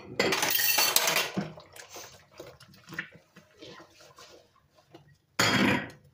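Dishes being hand-washed in a plastic bowl of soapy water: a loud splash and slosh of water for about a second, then quieter sponge scrubbing and light clinks of utensils, and a second short burst of splashing near the end.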